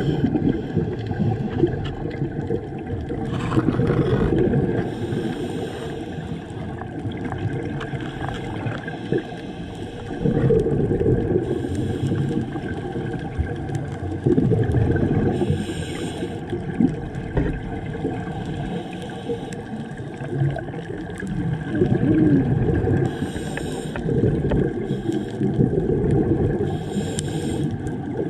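Underwater sound of a scuba diver breathing through a regulator: short hisses every few seconds, with gurgling, rumbling exhaled bubbles in between.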